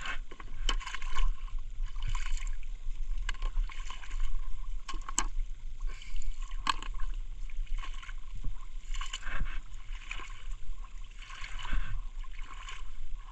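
Shallow, muddy pond water splashing and sloshing as someone wades through it step by step, in irregular bursts about every second.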